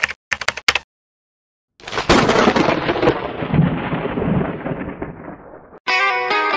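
A few quick digital clicks, then a gap, then a thunder-clap sound effect: a sudden crack that fades away over about four seconds. Electronic music cuts in near the end.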